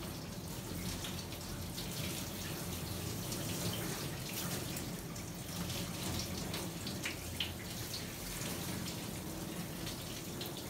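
Handheld shower sprayer running steadily, water spraying through a dog's wet coat and into a stainless steel grooming tub as the shampoo is rinsed out.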